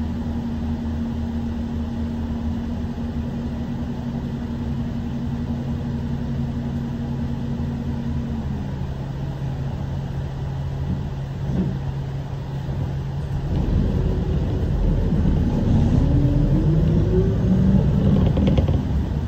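City bus engine idling at a standstill, heard from inside the cabin. About two-thirds of the way through, the bus pulls away and the engine note rises and grows louder as it accelerates.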